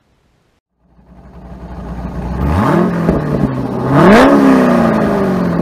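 A car engine accelerating: it fades in, rises in pitch twice, the second rise higher and loudest with a sharp crack at its peak about four seconds in, then the pitch slowly falls as it fades away.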